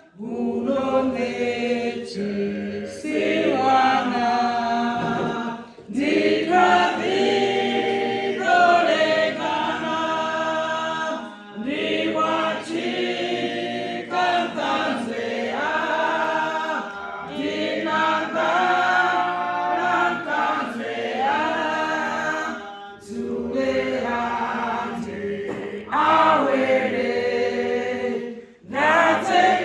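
A choir singing unaccompanied, in long held phrases with brief breaks between them.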